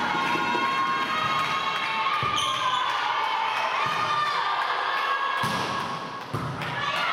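A volleyball bouncing on a sports-hall floor several times, with voices in the hall.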